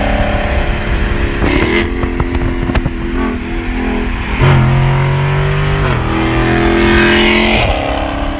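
Dodge Charger Scat Pack's 6.4-litre HEMI V8 running loudly, its pitch stepping up and down several times as the throttle changes.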